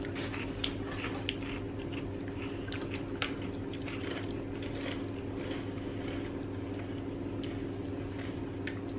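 Wasabi-flavoured potato crisps being bitten and chewed, with small crunches scattered throughout, over a steady low hum.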